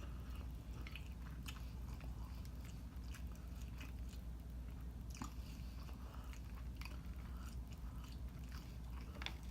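Close-up chewing and biting, with scattered wet mouth clicks and smacks, as a person eats breaded orange chicken and rice, over a low steady hum.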